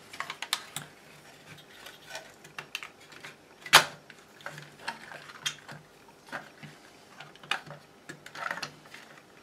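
Plastic battery-charger housing and circuit board being handled and turned over on a bench: scattered light clicks and knocks of plastic, with one sharp, loud click a little under four seconds in.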